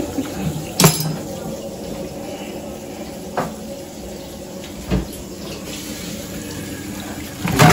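Cookware being handled: four sharp knocks and clanks spaced a second or two apart, the first and last the loudest, over a steady low background noise.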